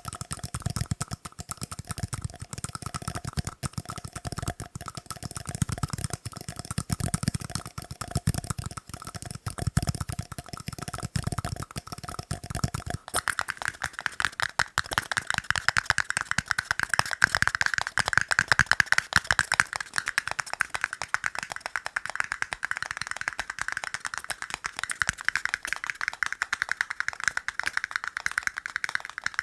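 Fast, continuous tapping on tiny cups, a dense patter of quick clicks. About halfway through, the tapping moves to a cup with a higher, brighter ring, and the low thuds drop away.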